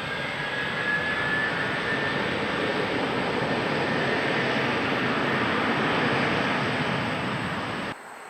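Korean Air Airbus A330-300's jet engines at takeoff: a steady jet rumble with a faint slowly rising whine in the first couple of seconds, cutting off suddenly near the end.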